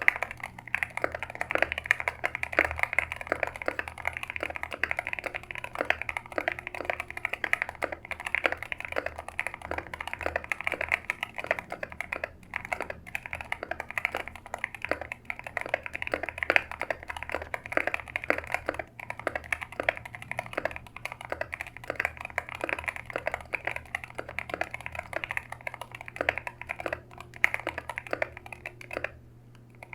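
Fast, continuous typing on a Keychron K2 HE keyboard with magnetic Hall Effect switches: a dense stream of key clacks, pausing briefly near the end.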